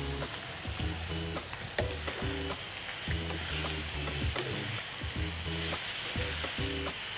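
Fish pieces, sliced onions and tomato wedges sizzling in a frying pan as a wooden spoon stirs them, with small scrapes and clicks of the spoon against the pan. Soft background music with low held notes plays underneath.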